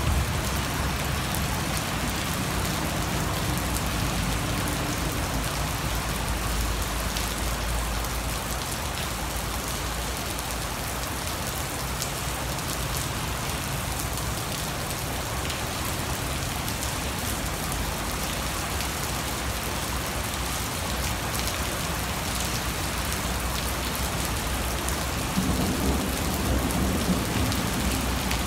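Heavy rain pouring down in a steady hiss onto wet brick paving, with a low rumble underneath that swells near the end.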